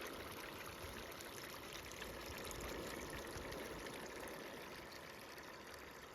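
River water flowing, a steady rushing noise that eases slightly near the end.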